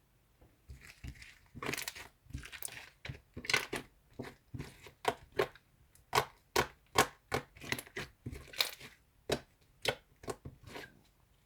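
Short crunching, crinkling sounds in quick succession, about two or three a second, starting about a second in and stopping just before the end.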